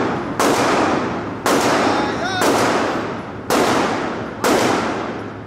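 Gunshots in an indoor shooting range, five evenly spaced shots about a second apart, each one sharp and then ringing out in the enclosed range.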